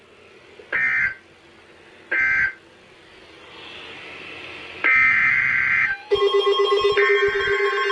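Emergency Alert System SAME digital data bursts: short, harsh, screeching bursts about a second and a half apart, the end-of-message code closing the previous alert. About five seconds in, a longer burst starts the next alert's header. From about six seconds a continuous buzzing, fluttering alert tone sounds, with further data bursts over it.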